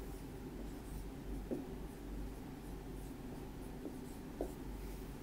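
Dry-erase marker squeaking and scratching on a whiteboard as an equation is written, in short strokes, with a few light knocks of the marker against the board.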